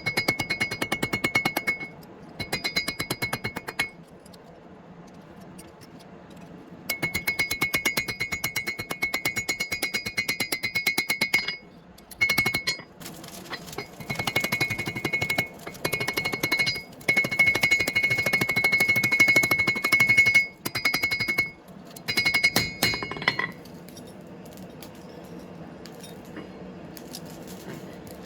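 Rapid, evenly spaced hammer blows on steel over an anvil, which rings with each strike. The hammering comes in several runs with short pauses between them and stops near the end.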